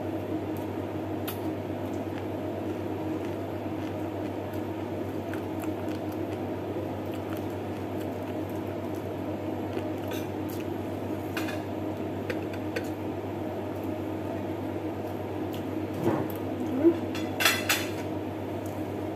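Eating sounds of chicken adobo and rice eaten by hand: chewing and wet squishing, with a few light clicks against the plate, the sharpest near the end. A steady low hum lies underneath.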